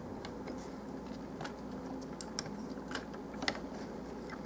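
Scattered light plastic clicks and taps, about eight, from hands handling a plastic Transformers Long Haul action figure, the sharpest about three and a half seconds in, over a faint steady room hum.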